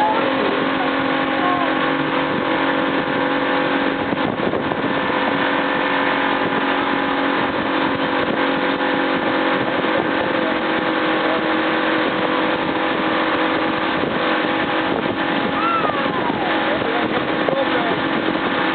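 Motorboat engine running steadily under way, with a constant hum and the rush of wind and water.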